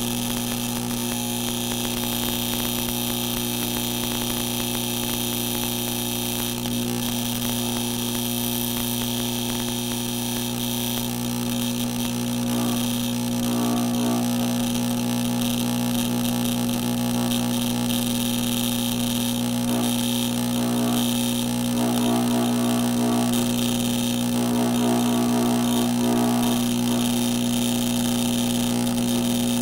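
AC TIG welding arc on 16-gauge aluminum, powered by a 40-year-old Lincoln AC 180 buzz box at 55 amps with an Arc Pig high-frequency stabilizer: a steady electrical buzz with hiss over it as the arc runs unbroken and filler rod is fed in, a little louder in the second half.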